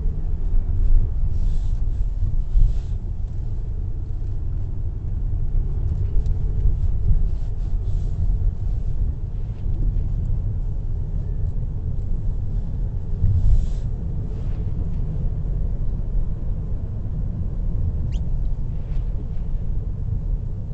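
Steady low rumble of a car heard from inside its cabin, with a few faint short swishes and clicks over it.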